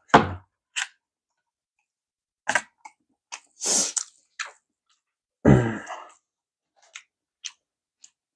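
Close-miked mouth and throat sounds of a person who has just finished eating and drinking: two heavy low sounds, near the start and about five and a half seconds in, a longer breathy hiss near four seconds, and scattered small wet mouth clicks between.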